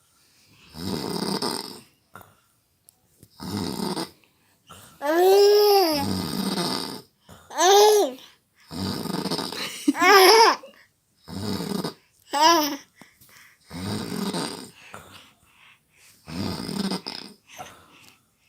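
A man snoring in slow, regular breaths about every two and a half seconds, while a baby laughs at it with four short, high squeals that rise and fall in pitch in the middle of the stretch.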